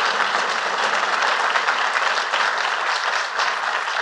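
A large crowd applauding: dense, steady clapping of many hands.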